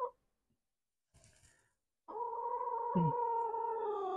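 A pet animal's long call at a steady pitch, held about two and a half seconds from about two seconds in, with a short falling low note under it partway through.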